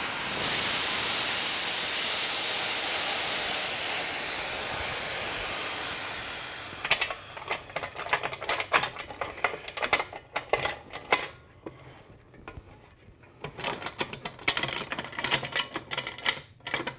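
Compressed air hissing out of a resin-casting pressure pot's release valve as the pot is vented before opening. The hiss is steady, then fades out about six seconds in. It is followed by a run of metallic clicks and clanks as the lid's clamps are worked loose.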